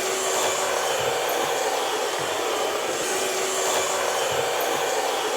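Household appliance's electric motor and fan running with a steady whoosh and a faint hum, then switched off abruptly near the end.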